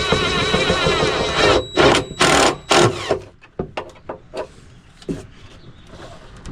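Cordless drill driving a screw into wood, running steadily for about a second and a half, then three short bursts as the screw is run home. Light clicks and knocks of handling follow.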